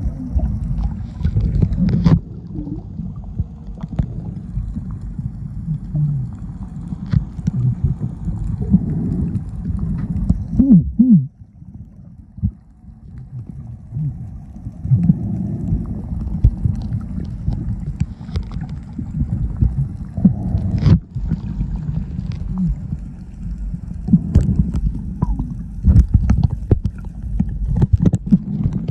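Muffled underwater rumble and sloshing picked up by a phone held under water, with scattered knocks and gurgles. It dips briefly about twelve seconds in.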